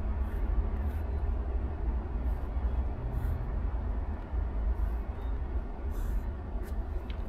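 Short strokes of a pen scratching on paper, over a steady low rumble.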